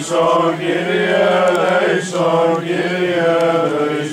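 Greek Orthodox Byzantine chant, voices holding long melodic phrases over a steady low drone, with a short break between phrases about two seconds in.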